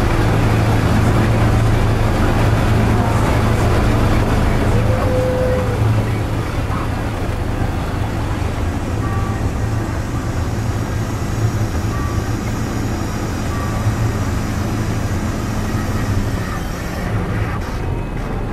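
Casey Jr. Circus Train rolling along its track: a steady low hum and rumble from the small ride train, with crowd chatter in the background.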